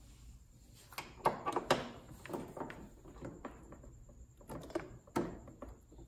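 A handful of scattered clicks and knocks from AC manifold-gauge hose quick-connect couplers being pushed onto a car's air-conditioning service ports, with the hoses being handled between them.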